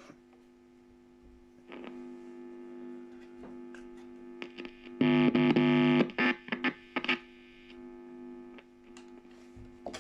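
Guitar amplifier humming, with scratchy crackles and about a second of loud buzz roughly halfway through, from an intermittent contact in the Les Paul's rewired controls, which the repairer traces to the contacts at a pot's output.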